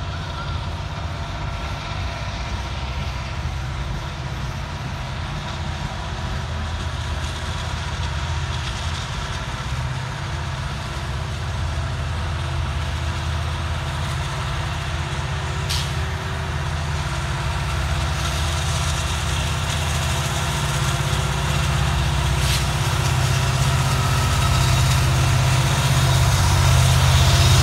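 Freight train climbing a grade past the listener, its cars rolling on steel rails under the steady low running of diesel locomotive engines working under load. The engine sound grows louder toward the end as another locomotive in the train draws near, with two sharp clicks about 16 and 22 seconds in.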